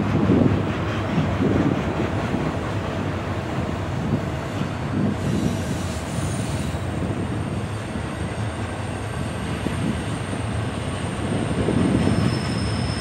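Intermodal container freight train rolling on curving track with a steady rumble of wheels on rail. A thin, high wheel squeal sets in about six seconds in, and a second squeal tone joins near the end.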